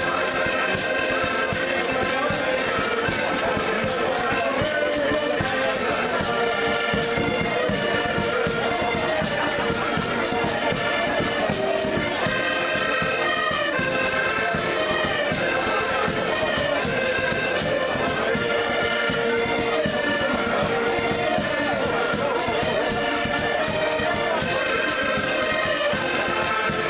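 Several button accordions playing a folk tune together, with held chords and a steady rhythm.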